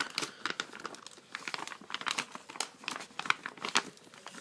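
Packaging being handled and unwrapped, crinkling and crackling irregularly as the knife is taken out.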